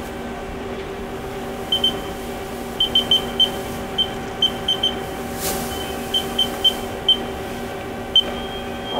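Short, identical high beeps from the Haas CNC control panel as keys are pressed, about fifteen in irregular groups, over the steady hum of the powered-up Haas ST-30 lathe. Just after eight seconds in, a steady high whine sets in as the spindle is started.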